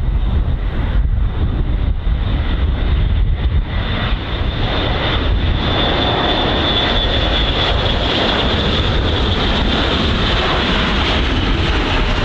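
The four TP400-D6 turboprop engines and eight-bladed propellers of an Airbus A400M Atlas on short final, a steady loud drone that fills out and brightens from about five seconds in as the aircraft comes close, with a high whine on top.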